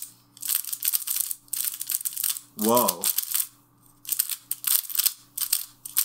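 QiYi MS Pyraminx being turned rapidly by hand: fast runs of plastic clicking and clacking from the puzzle's layers and tips, in two bursts with a short pause near the middle. The puzzle is new out of the box and turns very fast.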